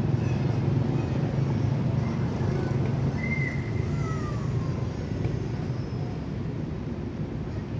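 Steady low outdoor rumble, with a couple of short high calls about three to four seconds in: a brief whistle, then a falling call.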